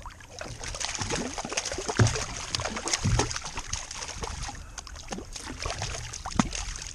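Water splashing and trickling beside a kayak in a busy run of small splashes and drips, with two louder low thumps about two and three seconds in.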